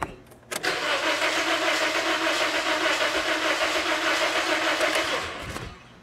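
2009 Toyota Corolla four-cylinder engine cranking over on the starter for about four and a half seconds without starting, with a steady pulsing beat from the compression strokes, then stopping. This is a relative compression test, and the technician reads cylinders 3 and 4 as lower in compression than 1 and 2.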